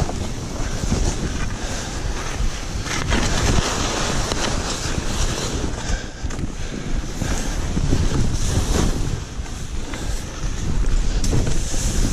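Wind rushing over the microphone at skiing speed, mixed with the hiss of skis cutting through powder snow, with uneven surges in level through the turns.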